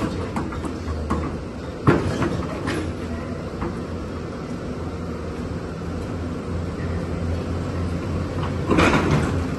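Hyundai demolition excavator's diesel engine running with a steady low hum, broken by a sharp knock about two seconds in, several lighter clicks, and a louder stretch of rattling noise near the end.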